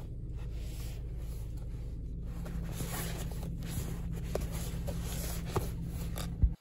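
Handling noise of a phone and its cardboard box: rustling and sliding with a few light taps and short squeaks over a low steady hum, ending in a sharp thump just before the sound cuts off.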